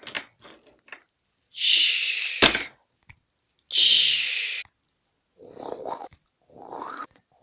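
A person making hissing vocal sound effects: three loud, breathy bursts about a second long each, with a sharp thump at the end of the second. Near the end come quieter rising vocal sounds.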